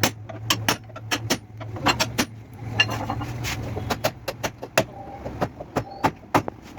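Irregular sharp metallic taps and knocks, two or three a second, from metal tools working a car's damaged body panel during collision repair. A steady low hum sits underneath and fades about halfway through.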